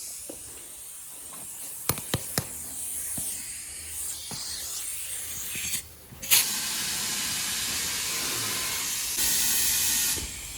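Compressed air hissing at a tire shop, with a few sharp clicks about two seconds in. It breaks off briefly near the middle, then resumes as a steadier, louder hiss that grows stronger about nine seconds in and stops shortly before the end.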